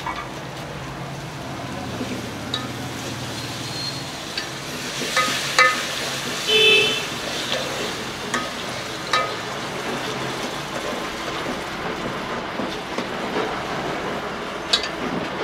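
Steel ladle stirring chicken masala in an aluminium pot over a wood fire, with scattered clinks and scrapes of metal on metal over a steady sizzle. A short tooting tone, the loudest sound, comes about seven seconds in.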